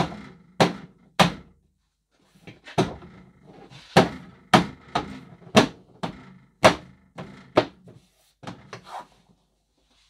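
Hands striking a plastic Ford C-Max tailgate trim panel, about fifteen sharp thumps in an uneven run with a short pause about two seconds in, knocking the panel's clips into place.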